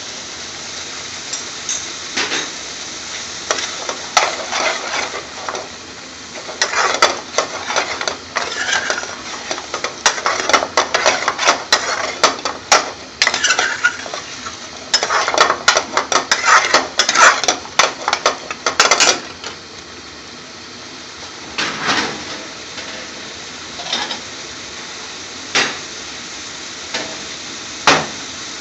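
Metal spoon stirring a thick chicken and lentil curry in a metal frying pan, scraping and clinking against the pan, over a steady sizzle of the curry cooking on the gas flame. The stirring comes in busy flurries, then thins out to a few single knocks of the spoon on the pan near the end.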